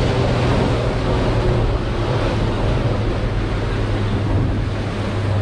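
Fishing boat running underway at sea: a steady low engine drone under the rush of water and wind buffeting the microphone.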